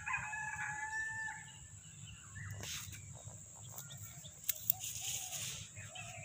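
Rooster crowing: one long drawn-out call in the first second and a half. After it come short low clucks and bursts of crackling rustle in dry leaves.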